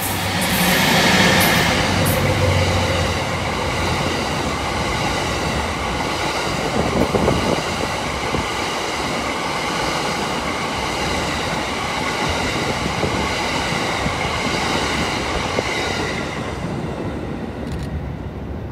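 EF64 electric locomotive and the E26 series sleeper coaches it hauls passing close by. The sound is loudest about a second in as the locomotive goes by, then the coaches' wheels keep up a steady rumble on the rails, fading away near the end.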